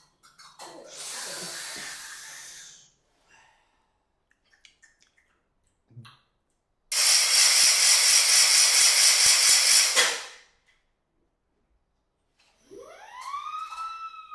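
Hand-made foley sound effects for a cartoon: a short hiss about a second in, then a loud hiss that pulses rapidly for about three seconds, then a rising, whistle-like tone that levels off near the end.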